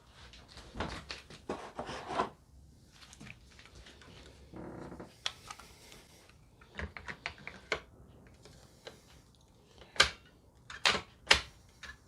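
Plastic vacuum parts and attachments being handled: knocks and rustling, then several sharp clicks close together near the end.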